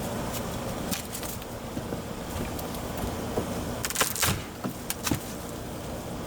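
A deck board being pried up with a screwdriver: scattered clicks and scrapes, with a cluster of sharp cracks and knocks about four seconds in.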